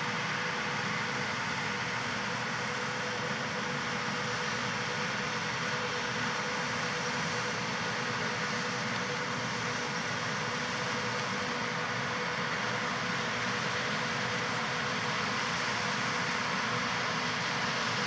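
John Deere 8000R-series tractor's diesel engine and the Amadas peanut combine it pulls, running steadily at work in the field, with a constant whine over a dense mechanical drone. It grows slightly louder near the end.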